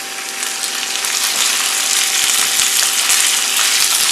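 Raw chicken sizzling in hot vegetable oil with browned onions in a frying pan, a steady hiss that grows louder, with a few light clicks.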